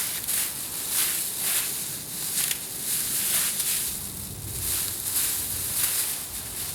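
Rustling and crinkling of packing material as a hand rummages through a shipping box, in uneven bursts.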